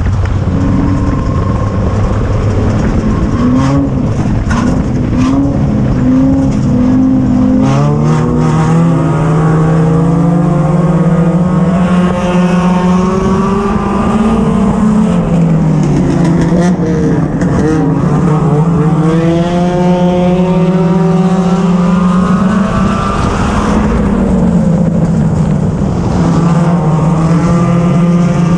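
Four-cylinder race car engine heard from inside the cockpit at race pace, its revs climbing and dropping again and again as the driver gets on and off the throttle. The note is lower and choppier at first, with a few sharp knocks, then climbs steadily from about eight seconds in.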